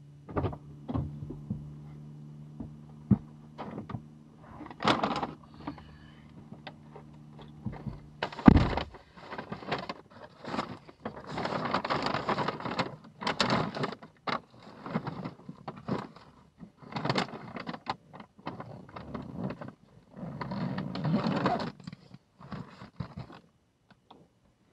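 A car door shuts with a single loud thud about a third of the way in, cutting off a low steady hum. Then come irregular rustling and scraping as a paper takeout bag is handled and packed into a nylon insulated delivery bag.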